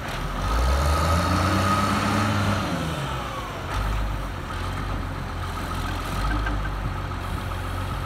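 John Deere 544E wheel loader's diesel engine running under way, its pitch rising and easing back during the first three seconds, then holding steady, with a thin high whine over the engine note.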